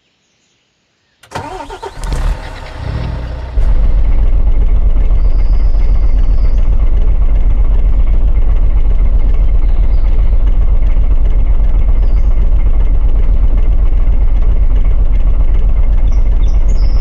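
Diesel truck engine started: a second or so of cranking that catches, then a loud, steady idle heavy in the low end.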